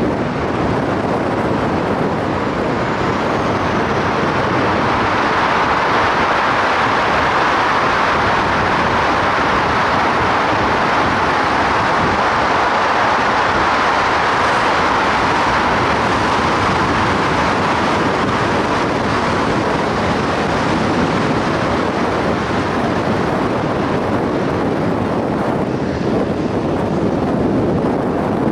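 Steady road noise of a car driving through a road tunnel: tyres on wet asphalt and passing traffic, a fuller rush through the middle while inside the tunnel, easing somewhat near the end as the car comes out into the open.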